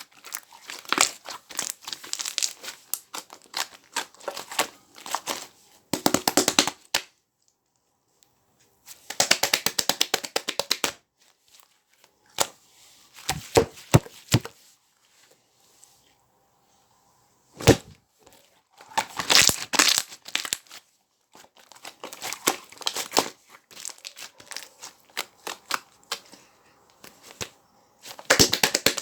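Air bubbles being squeezed and popped, giving bursts of rapid crackling pops a second or two long with short quiet gaps between them.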